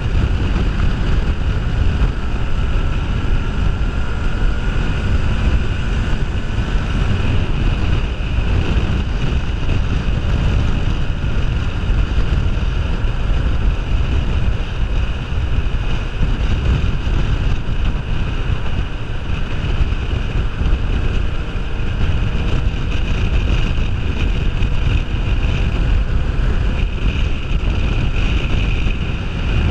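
Heavy wind rush on a helmet-mounted action camera's microphone at road speed on a Kawasaki Ninja 500R, with the bike's parallel-twin engine running steadily underneath.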